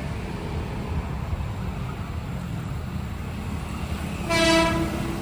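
Horn of a KRL Commuter Line electric train, one short single-pitched toot about four seconds in, over a steady low rumble. It is the driver's warning signal to a level crossing.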